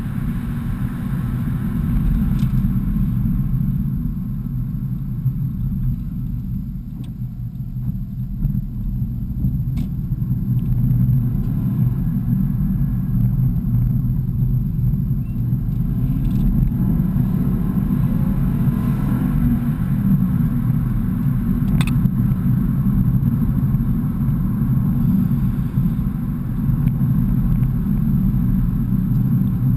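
BMW E46 car driving on a country road, heard from inside the cabin: a steady low engine and road rumble that eases off for a few seconds about a quarter of the way through, then picks up again.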